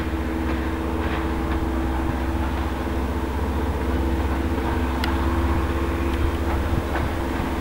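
Diesel railcar's engine idling steadily, a low rumble under a constant drone, with a few faint clicks, the clearest about five seconds in.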